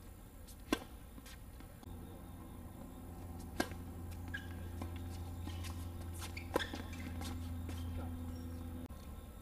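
Tennis racket strings striking a ball: three sharp pops about three seconds apart, the first a serve. A low steady hum starts about two seconds in and stops shortly before the end.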